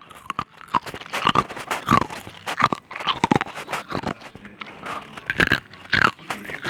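Ice being bitten and chewed close to the mouth: irregular sharp crunches and cracks, several a second, with wet chewing between them.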